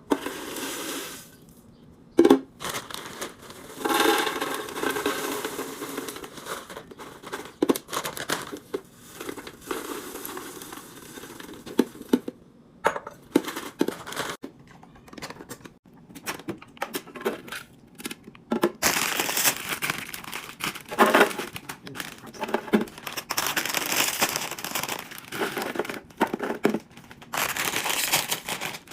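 Plastic packaging crinkling and rustling as groceries are handled, with irregular clicks and knocks of items and containers being set down.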